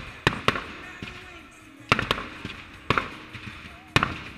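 Fireworks display: aerial shells and comets bursting in a volley of sharp bangs, about six in four seconds at uneven spacing, loudest near the middle and near the end.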